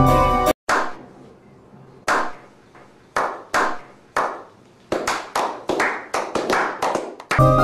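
Organ music breaks off, then a small group gives a slow clap: single hand claps a second or so apart, quickening into faster clapping before stopping.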